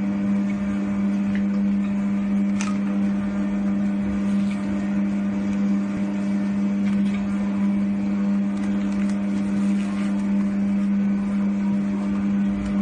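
FR900 continuous band sealer running, its motor driving the sealing bands and conveyor belt with a steady hum. A few light clicks come over it, one plainer about two and a half seconds in.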